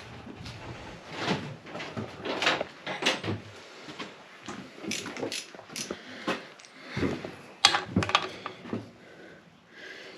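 Crankshaft of a 360 small-block Mopar V8 being turned over by hand with the oil pan off, giving irregular metallic clicks and clunks every second or so.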